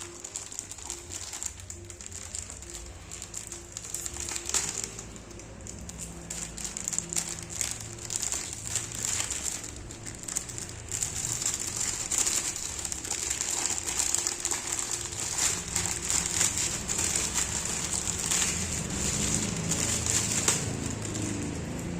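Packaging crinkling and rustling as it is handled and opened, with many small crackles and clicks throughout.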